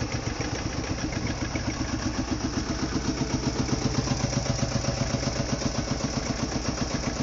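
Marshall tractor's single-cylinder two-stroke diesel engine idling with a steady, regular beat of several pulses a second.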